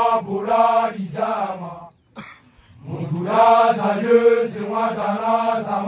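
Chorus of young men chanting in unison on a steady pitch. The chant breaks off about two seconds in and starts again just under a second later.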